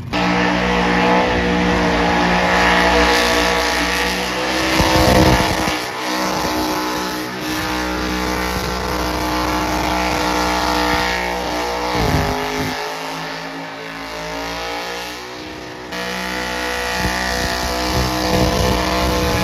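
Car engine held at high revs during a burnout, its tires spinning against the pavement with loud, steady engine and tire noise. The revs dip briefly about five and twelve seconds in, and the sound changes abruptly near the end.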